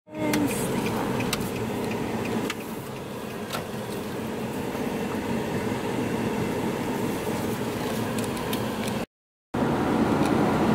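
Steady road and engine noise inside a moving vehicle's cabin, with a faint held hum and a few light clicks, cut off briefly about nine seconds in.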